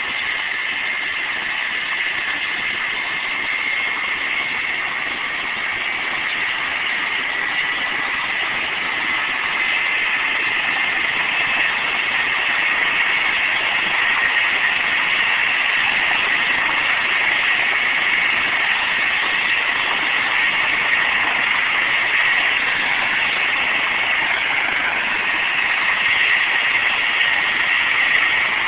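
Medical helicopter running on the ground with its rotor turning: a steady high turbine whine over a rushing hiss that slowly grows a little louder.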